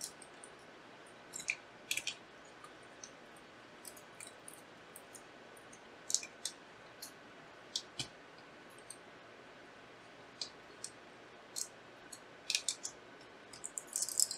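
Scattered small clicks and ticks of screws being backed out with a screwdriver and handled, as the cooler is unfastened from an EVGA RTX 3070 Ti FTW3 graphics card. The clicks come a few at a time, with a quicker cluster of them near the end.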